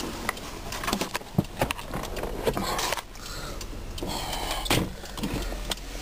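Driver's power window motor of a 2003 Nissan Maxima running the glass up on its one-touch auto-up, mixed with clicks, knocks and rattles from handling inside the car.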